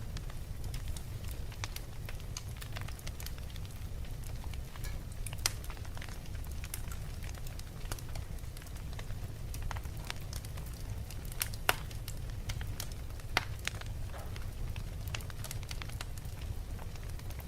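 Wood fire burning in a fireplace: a steady low rumble with irregular sharp crackles and pops, a few louder snaps scattered through.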